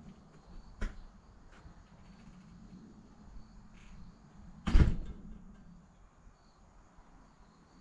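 A light knock about a second in, then a single loud clunk a little past halfway, from parts and tools being handled at an Allis-Chalmers D17 diesel tractor as its belt pulley is being hung. Crickets chirp faintly throughout.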